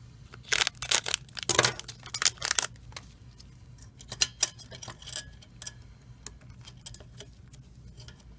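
Anti-static plastic bag crinkling and rustling as a small replacement fuser chip circuit board is pulled out, a busy flurry for the first few seconds, then sparser light clicks and taps as the board and its wire connector are handled, over a low steady hum.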